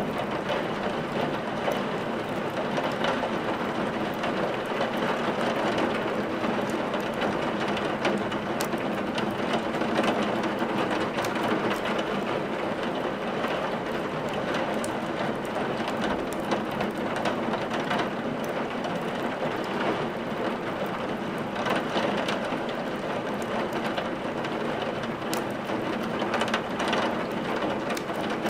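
Steady rain, with scattered sharp crackles of firewood burning in a fireplace.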